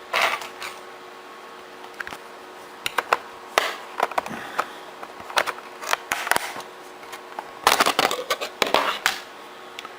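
Irregular sharp plastic clicks, taps and short scrapes of hands working the underside of an Acer TravelMate 5742Z laptop, its memory compartment cover unscrewed, with the busiest handling about a second from the end.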